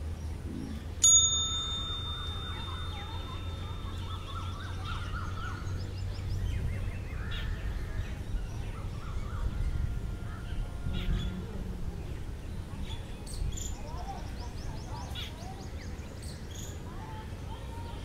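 Oriental magpie robin singing: a run of short, varied whistled notes and phrases. About a second in, a sharp bell-like ding rings on for a few seconds and is the loudest sound, over a steady low background rumble.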